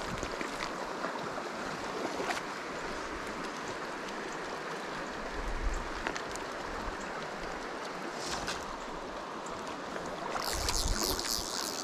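Shallow creek water running steadily over a rocky riffle. Near the end a louder, high-pitched rasp joins it.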